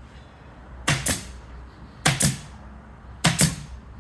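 Three pairs of sharp knocks, about one pair a second, as tambour slats are fixed onto a wooden reception desk, over a low steady hum.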